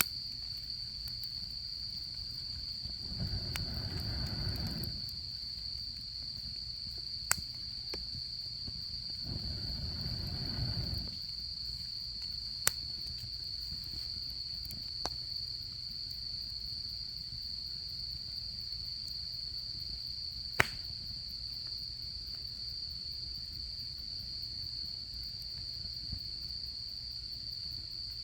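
Autumn insects trilling steadily at one high pitch, with a few sharp campfire crackles, the loudest about two-thirds of the way through. A soft low rush swells twice in the first half.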